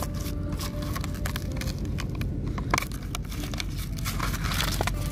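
Paper packaging crinkling and rustling as it is pulled out of a replacement phone battery's box by hand, with scattered sharp handling clicks, one louder near the middle.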